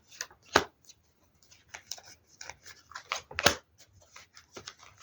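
Tarot cards being handled and shuffled: a run of light clicks and slaps from the deck, the two loudest about half a second and three and a half seconds in.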